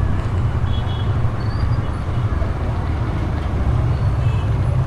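Busy motorcycle traffic heard from the back of a moving motorcycle taxi: the small engines of the taxi and the many motorcycles around it running, making a steady low rumble.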